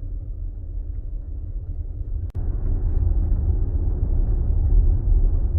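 Low road and tyre rumble inside the cabin of a Tesla Model X being driven. A little over two seconds in there is a brief dropout with a click, and after it the rumble is louder, with more hiss.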